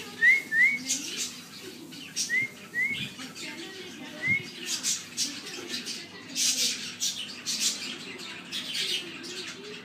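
Indian ringneck parakeet giving five short rising chirps in the first half, then scratchy rustling strokes as it preens its feathers.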